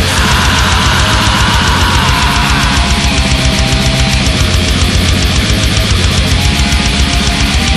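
Thrash metal music: loud distorted electric guitars over a fast, even beat.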